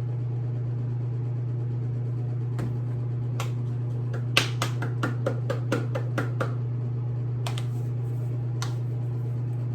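Sharp clicks and taps, a few scattered and a quick run of about eight in two seconds near the middle, over a steady low hum.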